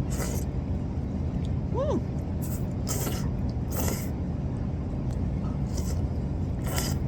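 Steady low rumble of a car being driven, with a few short swishes and a brief rising-and-falling squeak about two seconds in.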